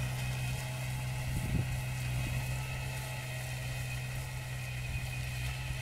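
Tractor engine running steadily, driving a front-mounted reaper-binder at work in the field.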